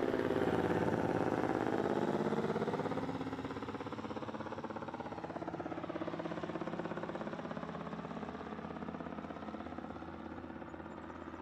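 Aircraft engine running at the airfield with an even pulsing drone, gradually fading as it moves away.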